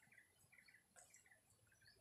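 Faint bird chirps: short clustered notes repeating about twice a second, over near silence.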